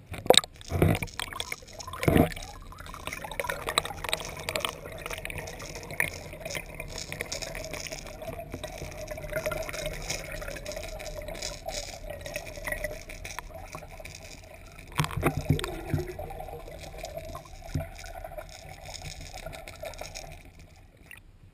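Water recorded underwater as a lipless crankbait lure hits the water with a few sharp splashes and is then drawn through the pool, giving a steady watery rush scattered with small clicks. The clicks fit the split shot loaded inside the lure rattling. A cluster of louder knocks comes about three-quarters of the way through.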